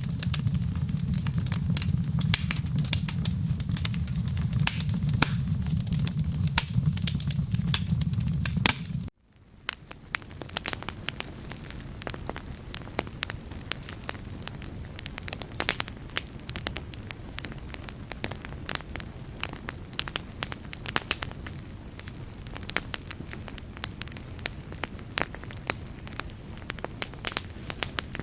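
Wood fire crackling with dense pops over a low rumble. About nine seconds in, the sound cuts off abruptly, then fades back in quieter as sparser crackles without the rumble.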